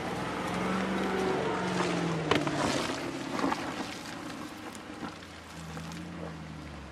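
Land Rover Defender's engine running at low revs as it crawls off-road up a slope, with a steady hum. There are two sharp knocks, about two and three and a half seconds in, and the sound fades slightly toward the end.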